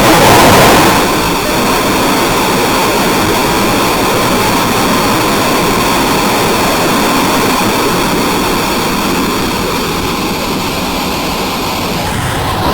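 Loud, steady rushing noise like static, louder for about the first second and then holding even.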